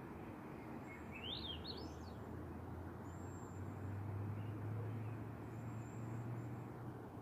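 Rufous hummingbird chirping: a quick run of squeaky up-and-down chirps about a second in, then fainter ones. A low buzz, likely its wings, swells through the middle.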